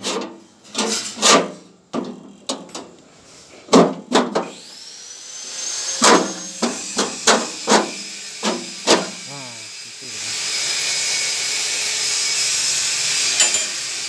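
Steel perforated screen knocking and scraping against the sheet-metal housing of a grass chopper as it is worked loose and pulled out by hand. A high steady whine comes in about a third of the way through, and a steady hiss joins it from about two-thirds of the way in.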